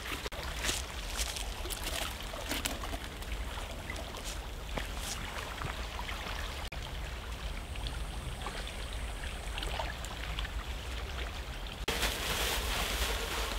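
Small forest stream trickling steadily, with scattered clicks and rustles of gear being handled; the sound turns suddenly louder near the end.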